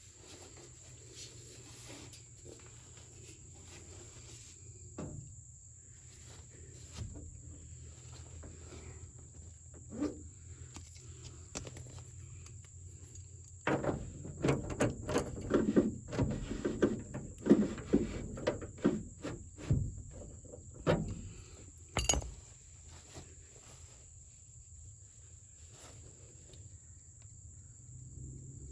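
Hand work on a pickup truck's door: scattered knocks and rattles of metal parts and tools, coming thick and loud for several seconds about halfway through, then a single sharp click. A faint steady high chirring, like crickets, runs underneath.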